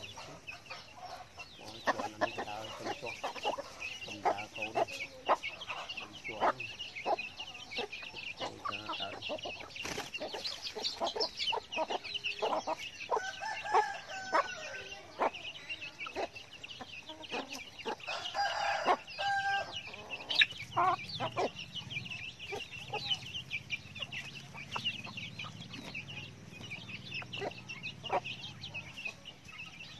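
Domestic chickens foraging: hens clucking and chicks peeping continuously, with many short clicks as they peck and scratch at the dirt, and a few louder calls near the middle.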